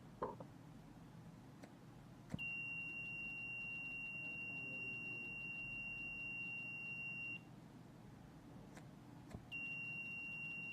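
Piezo buzzer of an Arduino flame-sensor fire alarm sounding one steady high-pitched tone for about five seconds, stopping, then sounding again near the end. This is the alarm signalling that the flame sensor has detected a flame. A few faint clicks come in the gaps.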